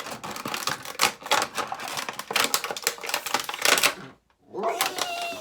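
Rapid, irregular clicking and crackling of hard plastic packaging being handled and pulled at around a toy figure, with a brief pause a little after four seconds.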